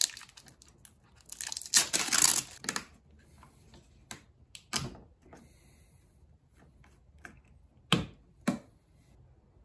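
A 5-litre plastic motor-oil jug being handled and opened at its cap: a rustling, tearing noise for about a second near two seconds in, then scattered clicks and two sharp knocks near the end.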